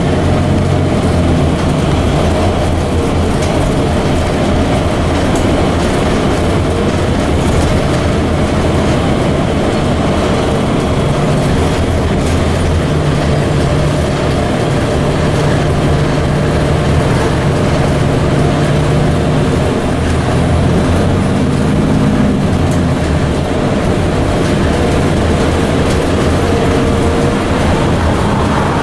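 Freight train of loaded flatcars rolling past close by, a steady noise of steel wheels running on the rails, heard from inside a car.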